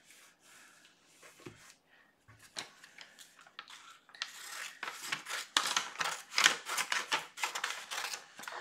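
Scissors snipping through a sheet of diamond-painting release paper, with the paper rustling. It starts as faint handling of the paper, and from about four seconds in there is a quick run of loud, crisp cuts.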